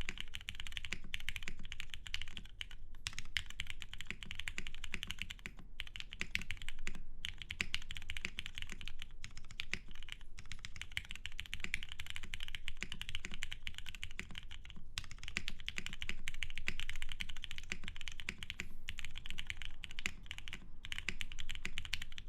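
Continuous fast typing on a custom Geonworks F1-8X mechanical keyboard with lubed Cherry Hyperglide MX Black linear switches, an aluminum leaf-spring plate and XMI PBT keycaps. The sound is a dense run of key clicks with brief pauses every few seconds; the owner hears these PBT keycaps as deeper and more muted.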